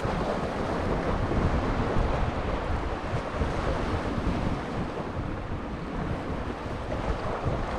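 Sea waves washing against shoreline rocks, a steady rushing noise, with wind buffeting the microphone.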